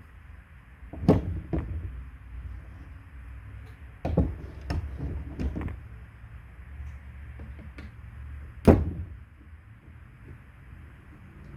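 Knocks and clunks of carburetor parts being handled and set down while a Holley carburetor is taken apart: one about a second in, a cluster around four to six seconds, and the loudest near nine seconds. A steady low hum runs underneath.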